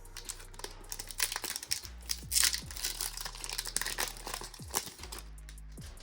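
Foil wrapper of a Pokémon trading-card booster pack crinkling as it is handled and opened, loudest about two and a half seconds in.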